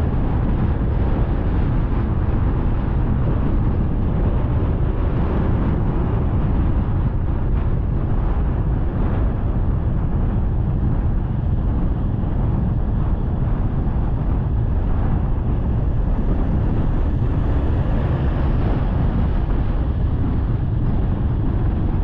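Wind buffeting the microphone on a moving motorcycle, mixed with the motorcycle's engine and tyre noise on the road; a steady, low rushing sound.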